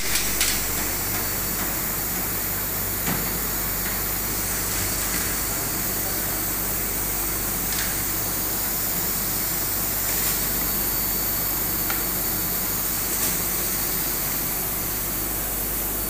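Steady whooshing machine noise throughout, with a few faint clicks and knocks as the metal front grille of an air-conditioner indoor unit is handled and lifted off.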